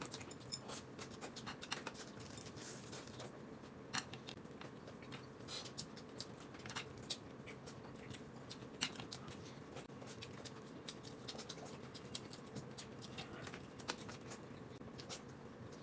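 Faint eating sounds: irregular small clicks and crunches of chewing and handling food, over a low room hum.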